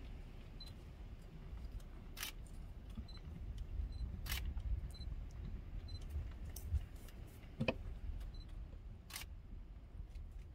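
Quiet low rumble with a few sharp clicks spread through it, the clearest about two seconds in, at four, near eight and at nine seconds.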